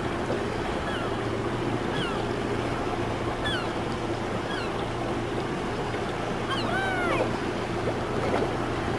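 A boat engine running steadily over wave and wind noise, with birds calling every second or so and a burst of several calls about seven seconds in.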